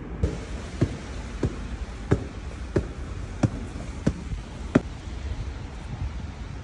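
Eight evenly spaced thuds, about one every two-thirds of a second, over a steady background hiss; they stop a little under five seconds in.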